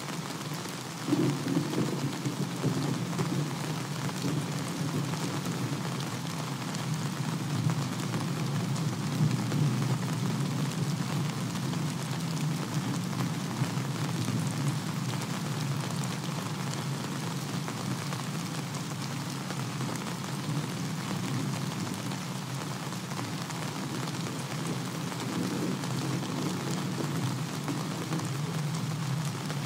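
Thunderstorm at night: steady rain hissing with thunder rumbling low underneath, the rumble swelling about a second in and carrying on.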